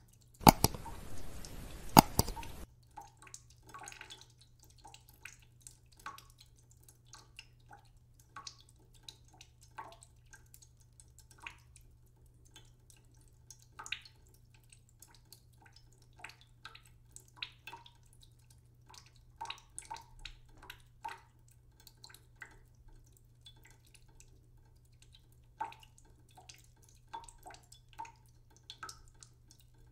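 Oil crackling in a hot pan under a flatbread, as scattered small pops. Near the start a loud hiss lasts about two seconds, with a sharp click at its start and another near its end.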